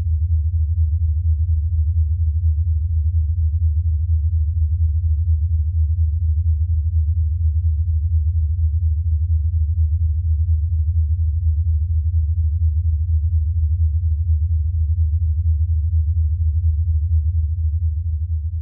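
Sonified X-ray recording of the black-hole binary GRS 1915+105, made audible: a deep, steady hum with a rapid flutter.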